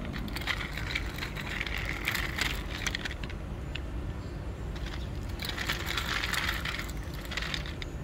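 Small plastic toy dump trucks pushed across a gritty concrete floor, wheels and plastic beds scraping, with small gravel stones clattering. The scraping comes in two spells, one early and one about six seconds in, with scattered clicks.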